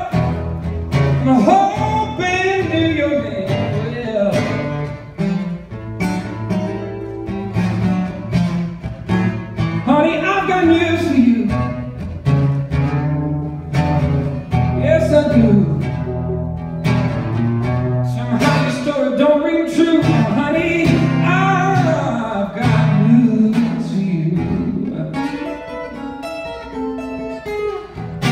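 Solo acoustic guitar played live in a blues style, with bending, sliding melody notes over steady low bass notes.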